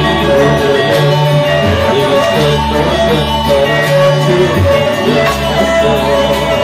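Loud music from a small live ensemble accompanying a Reog dance: a melody over sustained bass notes, with drum hits.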